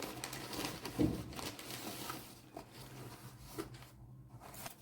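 A package being opened and handled: light rustling and small clicks, with one louder knock about a second in.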